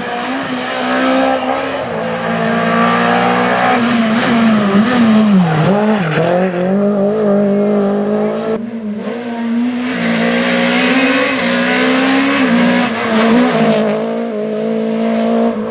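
Renault Clio Williams rally car's 2.0-litre 16-valve four-cylinder engine running hard at high revs. The pitch wavers and dips about five or six seconds in as the car comes off the throttle, then holds high again. The sound breaks off abruptly near nine seconds and resumes at high revs.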